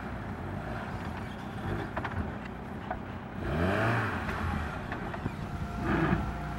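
Off-road 4x4's engine running as it crawls through a rutted sandy trench, revving up and back down about halfway through, with a few short knocks a couple of seconds in.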